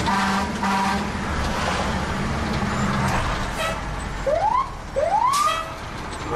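Fire engine's warning devices heard from inside the cab: two short horn blasts in the first second, then two short rising siren whoops about four and five seconds in. The truck's engine rumbles steadily underneath.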